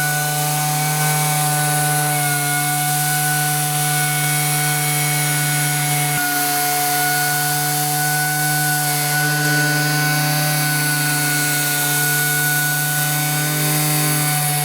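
Robot-mounted Nitto Kohki APS-125-01 pneumatic dual-action orbital sander running steadily, giving a constant hum and whine over a hiss of air.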